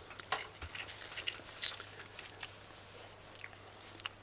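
A person chewing a mouthful of food, with scattered small clicks, the sharpest about a second and a half in.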